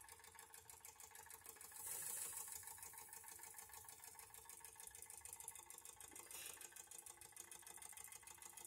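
Wilesco D455 model live steam engine running fast and faint, a quick even mechanical patter over a steady hiss, with a brief louder hiss about two seconds in.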